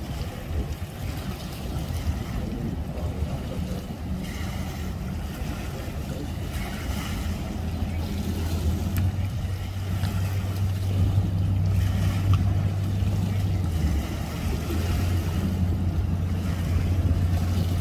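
Low, steady engine drone that grows louder about halfway through, over a background of outdoor noise.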